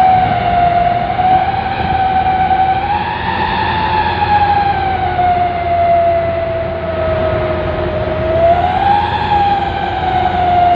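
Whine of a radio-controlled miniature truck's electric motor and gearbox, its pitch rising and falling slowly as the truck drives on, over a low steady rumble.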